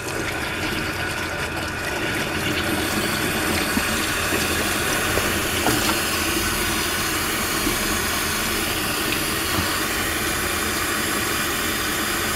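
Water from a garden hose rushing through an engine block's coolant passages and pouring out of the engine, a steady flow that grows a little louder about two seconds in as the block is flushed with plain water.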